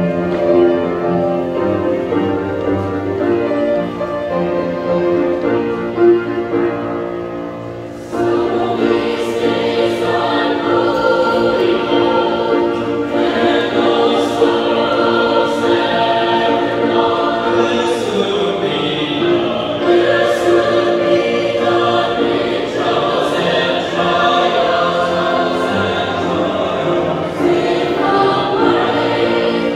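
Mixed youth choir of young men and women singing a sacred song together, sustained many-voiced chords. About eight seconds in the singing comes in louder and fuller, with the words' consonants clearly heard.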